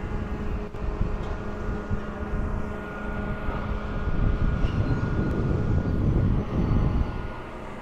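Wind rumbling and gusting on the microphone, stronger from about four seconds in, over a steady engine drone from the long-reach demolition excavators working on the building.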